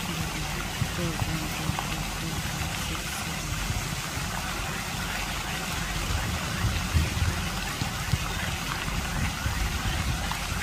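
Lake fountain jets spraying and splashing back onto the water: a steady hiss of falling water, with a low, uneven rumble underneath.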